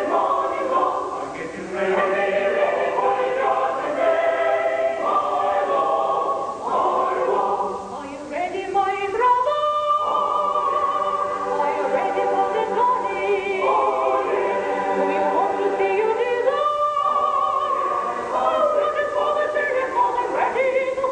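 Choir singing, holding long notes, with short breaks between phrases about two and eight seconds in.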